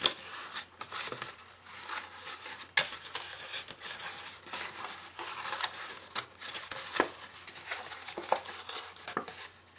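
Cardstock being folded along its score lines, rustling and crinkling with many small clicks and taps as the creases are pressed.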